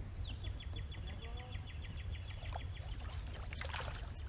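A small bird's rapid trill: an even run of short, high notes, about eight a second, lasting about two and a half seconds, over a steady low rumble.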